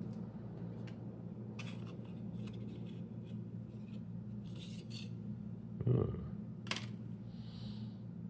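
Light clicks and taps of a fixed-blade knife and its Kydex sheath being handled, with a soft thump about six seconds in and a sharp click just after. A steady low hum sits underneath.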